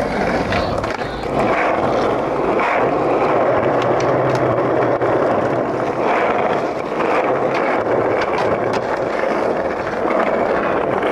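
Skateboard wheels rolling steadily over rough concrete, a continuous grinding rumble with a few small clicks.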